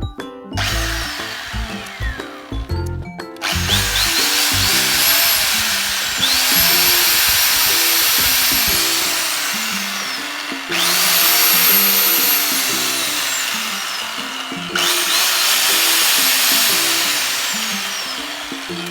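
Cordless power tool motor being run with no load in short runs, about five trigger pulls, each a whine that climbs as the motor spins up and falls away as it coasts down on release, as a check of whether the junk tool still works.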